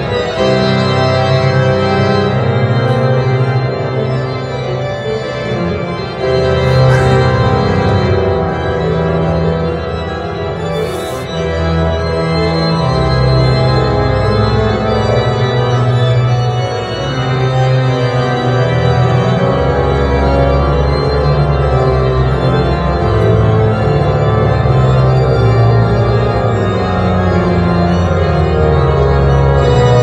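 Pipe organ playing full, sustained chords, with very deep bass notes joining about twelve seconds in and holding under the harmony.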